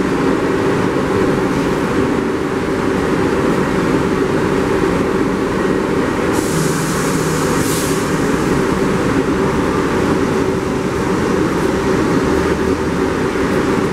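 R62A subway train standing at the platform with its doors open: a steady hum with several steady low tones from its idling equipment, under station noise. A brief high hiss comes about six seconds in.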